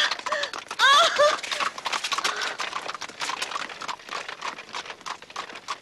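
Horses' hooves clip-clopping on a hard road in a quick, irregular stream of strikes. A few short rising cries sound over the hooves in about the first second and a half.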